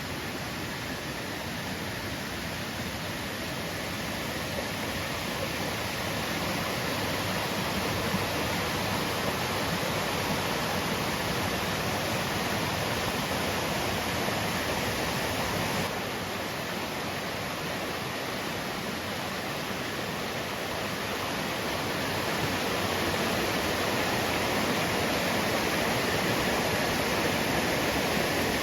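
Steady rushing of water, an even hiss with no breaks, growing a little louder in the last few seconds.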